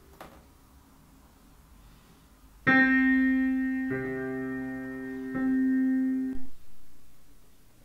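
Slow solo piano music. After a quiet pause, a chord is struck about two and a half seconds in, then two more chords follow about a second and a half apart, each left to ring and fade away.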